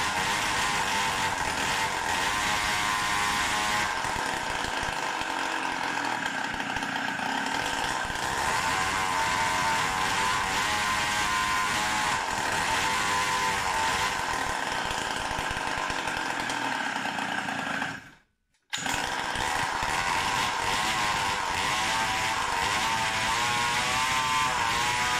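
Samurai 40cc two-stroke mini-bike engine running and being blipped, its pitch wavering up and down without revving out freely, which the owner puts down to ignition timing still set too late. It cuts off abruptly about three quarters of the way through and is then running again, with 5 more degrees of advance.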